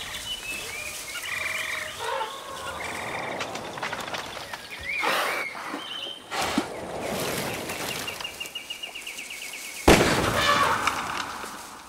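Jungle ambience of many short bird chirps and calls, with a fast steady insect-like trill a little before the end. Near the end a sudden loud bang cuts in, the loudest sound, and dies away.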